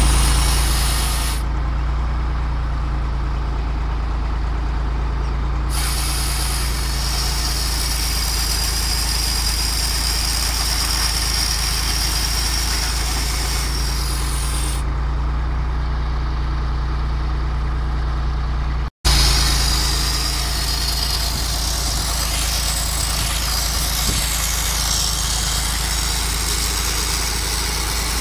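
Tractor engine running steadily, powering a homemade tractor-mounted log-cutting rig built around a chainsaw bar. At intervals the saw chain runs through the wood, adding a high whine over the engine.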